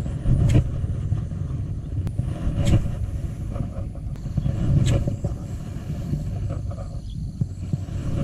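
Wind buffeting an outdoor camera microphone as a steady low rumble, with a few short clicks and knocks from handling the rod and camera.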